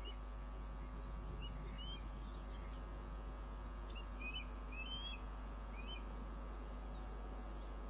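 Osprey chirping during a feed: a few short, high chirps, then a quicker cluster of them about four to five seconds in. A steady low electrical hum runs underneath.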